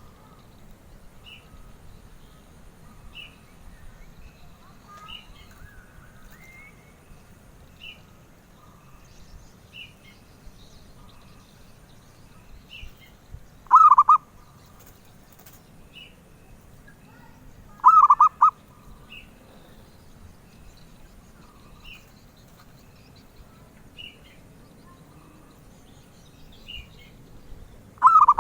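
Zebra dove (perkutut) cooing: a loud burst of several quick notes about halfway through, another about four seconds later, and a third starting at the very end. Between them a faint short high chirp repeats about every two seconds.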